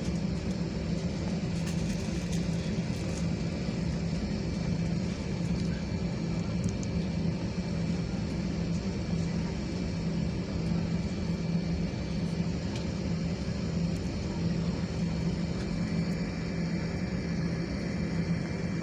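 Jet airliner cabin noise while taxiing: the engines and cabin air running steadily at low power, a constant low drone with a faint high whine above it.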